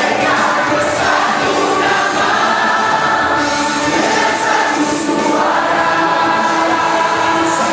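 A large crowd of students singing together in unison, holding long notes.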